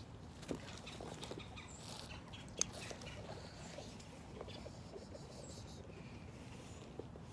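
Faint bird chirps with scattered small clicks and rustles; one sharper click about two and a half seconds in.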